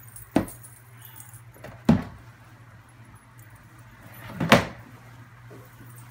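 Three sharp knocks, the last slightly longer and loudest, as the boxed bag in its cloth dust bag is handled and lifted out of a cardboard box, over a steady low hum.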